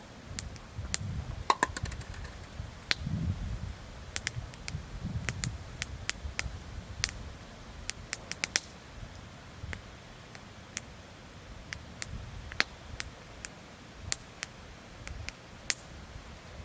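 Firewood crackling in a campfire: irregular sharp pops and snaps, with a quick run of them about eight seconds in, over a low rumble.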